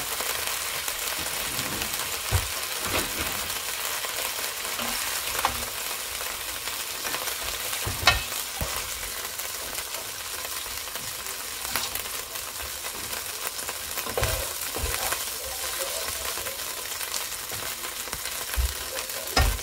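Chicken pieces frying in hot oil in a pot, a steady sizzle throughout, with a few sharp knocks of a slotted spoon against the pot as the pieces are lifted out.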